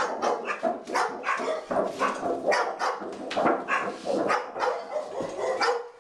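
A dog barking rapidly and repeatedly, about three barks a second, stopping just before the end.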